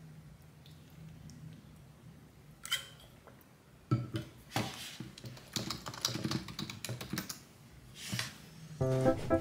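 Quiet room hum, then knocks as an insulated water bottle is handled and set on the desk about four seconds in, followed by a quick run of computer keyboard clicks. Soft plucked background music comes in near the end.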